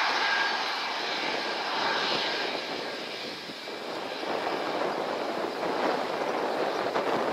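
Jet engine noise from an F-2 fighter's single F110 turbofan as it rolls along the runway: a steady rushing sound that dips about three and a half seconds in and swells again.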